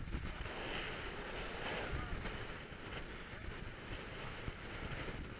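Strong wind buffeting the microphone and water rushing and spraying along the hull as an inflatable boat runs fast through choppy sea; a dense, steady rushing with a heavy low rumble.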